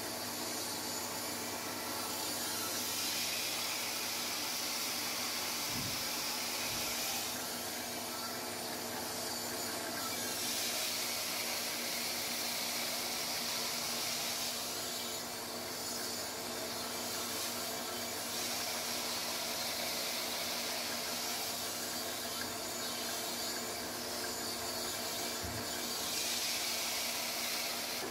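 A 6x48-inch belt sander with a 120-grit Cubitron belt runs with a steady hum while the long steel blade of a Master Kuo GL-500 tuna knife is ground against it. Several passes, each a few seconds long, add a rising and fading hiss of steel on the abrasive belt.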